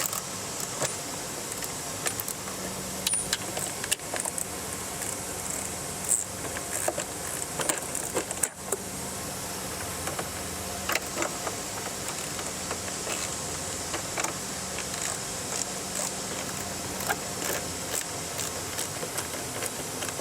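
Phillips screwdriver driving number 10 screws through a plastic mud flap into nylon clips, lightly snugging them down: scattered small clicks and ticks over a steady low hum.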